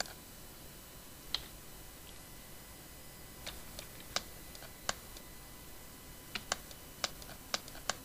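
Scattered clicks of a computer mouse and keyboard, about ten in all, irregularly spaced and coming more often in the second half, over a faint steady hiss.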